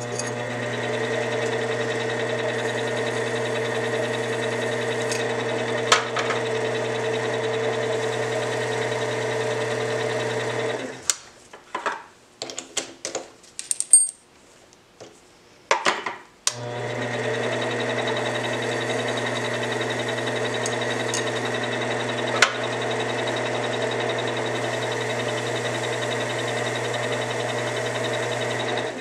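Benchtop mini lathe running steadily with a motor hum and whine while aluminium spacers are deburred in the chuck. It stops about eleven seconds in, and a few seconds of clicks and knocks follow as the chuck is opened and a part is changed. It then starts again and runs until it stops at the very end.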